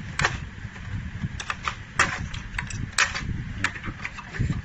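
A string of sharp plastic clicks and snaps as a robot vacuum's plastic chassis and charging-contact mount are handled and pried apart, the loudest about two and three seconds in, over a low rumble.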